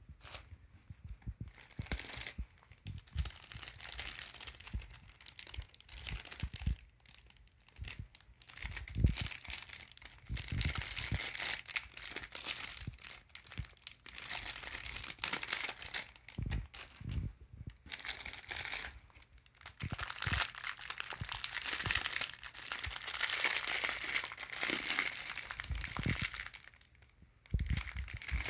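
Clear plastic wrapping around packets of bangles crinkling and rustling in the hands as they are lifted out of a cardboard box, with scattered low handling bumps. The rustling is irregular and grows busier and louder in the second half.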